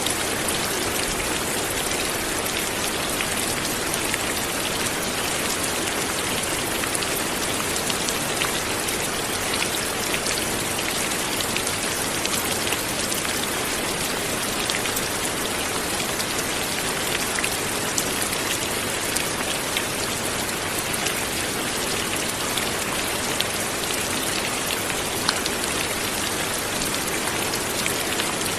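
Light, steady rain falling, with many small drop ticks over an even hiss.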